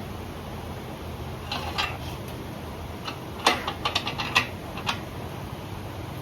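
Sharp metallic clicks and knocks, a couple about one and a half seconds in and a quick cluster about three and a half to five seconds in, as the engine block is turned over on its engine stand, over a steady low hum.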